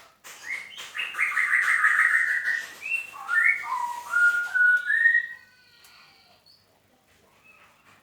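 A songbird singing a loud run of whistled notes, some long and some short, gliding up and down. The song stops about five seconds in.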